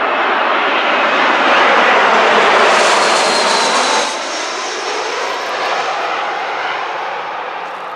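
Airbus A320's twin turbofan engines on landing approach: a jet roar with a faint high whine, swelling to its loudest two to three seconds in, then dropping sharply about four seconds in and carrying on at a lower level.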